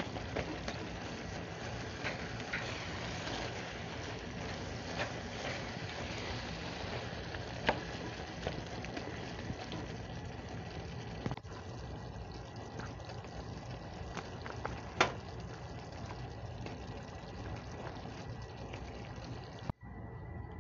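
Taco meat and melting Velveeta simmering and sizzling in a cast-iron skillet, with a spatula scraping and clicking against the pan now and then as the cheese is stirred in.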